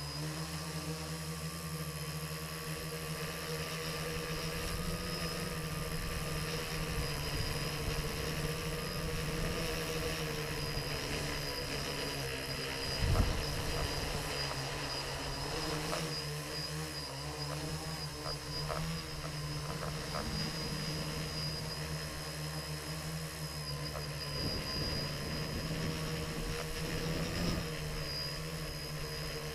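Electric motors and propellers of a radio-controlled multirotor drone whining steadily as it flies, heard from its own onboard camera, the pitch drifting a little with throttle. About 13 seconds in there is one short thump, the loudest sound.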